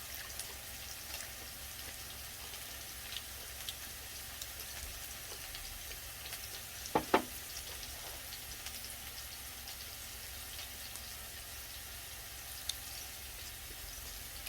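Beef sizzling in hot oil in a pan, a steady hiss with light crackles. About halfway through, two sharp knocks in quick succession.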